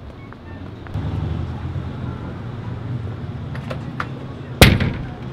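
A hand banging flat against a café's plate-glass window: one sharp, loud slap about four and a half seconds in, over a steady low street rumble.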